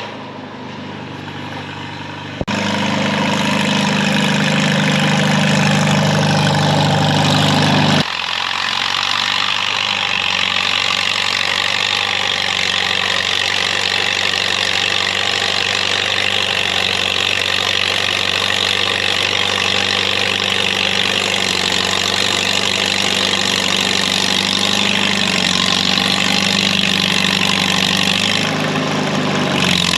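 Crawler tractor engine running steadily. The sound changes abruptly twice, about two and a half and eight seconds in.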